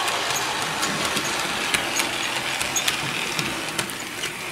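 Bachmann HO scale model train running on its track: the diesel locomotive's small electric motor and gears whir steadily, with scattered clicks from the wheels over the rail joints.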